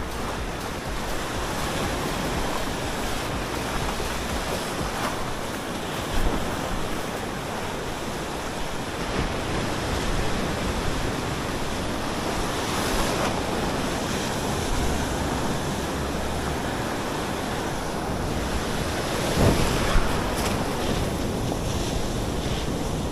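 Surf washing onto a beach, with wind buffeting the microphone. Short louder sounds stand out about six seconds in and again near the end.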